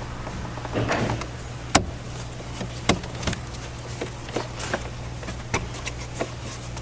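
Scattered clicks, taps and knocks of plastic dash trim and hand tools being handled, with a sharp click about two seconds in and another about a second later, over a low steady hum.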